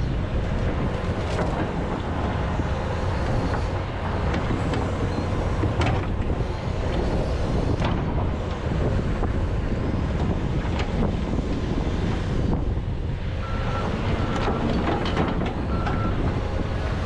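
John Deere 210G excavator's diesel engine running steadily, with scattered knocks as the bucket breaks up frozen peat moss. A few short, high beeps come near the end.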